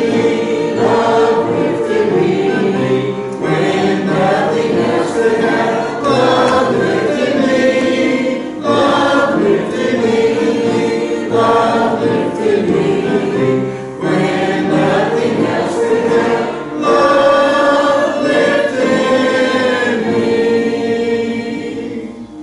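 Church congregation singing a hymn together in phrases, the singing ending just before the close.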